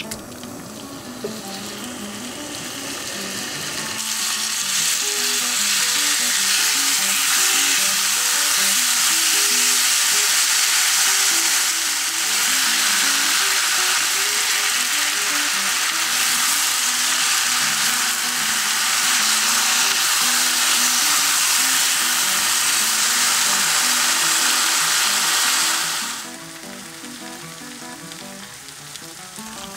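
Gochujang-marinated pork belly sizzling loudly as it is stir-fried in an oiled wok. The sizzle builds over the first few seconds, holds steady, and drops away sharply near the end.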